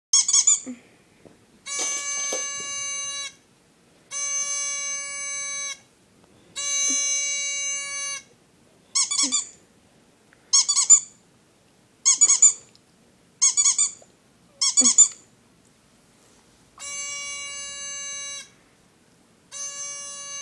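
Squeaky sound effects played for a dog. Long, steady, pitched tones of about a second and a half each alternate with short, high squeaks that come in quick clusters of two or three, with brief pauses between them.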